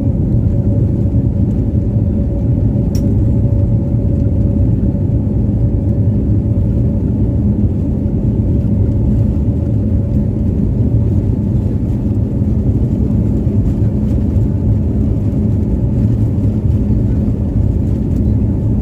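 Airliner's jet engines and airframe during takeoff: a loud, steady low rumble, with a faint steady tone that fades out about halfway through.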